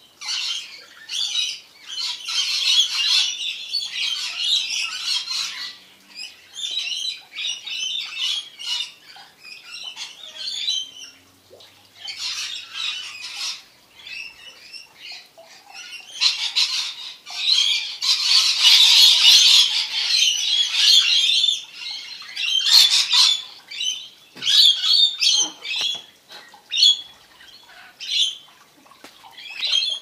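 Rainbow lorikeets screeching in irregular bursts of shrill chatter, with a long, dense burst a little past the middle.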